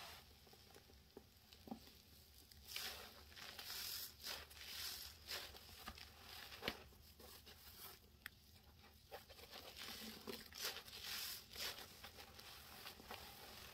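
Wet sponges being pressed and squeezed into baking soda powder and dish soap: repeated soft crunching, crackling squishes that start about three seconds in and come unevenly.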